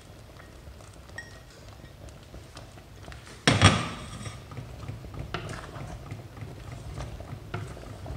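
Wooden spoon stirring soup in a stainless steel pot, knocking against the pot's side now and then. A loud clatter about three and a half seconds in is the loudest sound.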